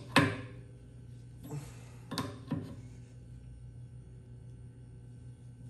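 Adjustable wrench clinking against the brass fitting of a pressure washer pump as a hose fitting is tightened: one sharp metallic clink just after the start, then a few lighter knocks about two seconds in, over a low steady hum.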